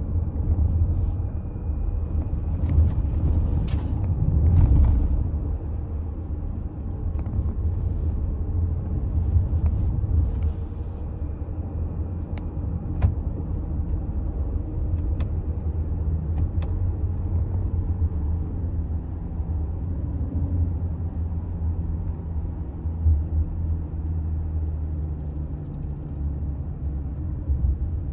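Toyota Alphard hybrid minivan driving, with a steady low road and tyre rumble and occasional light clicks.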